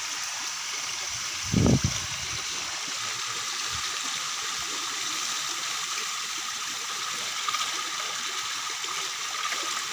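Steady rush of shallow stream water pouring through a cut in a muddy bank, with a single brief dull thump about one and a half seconds in.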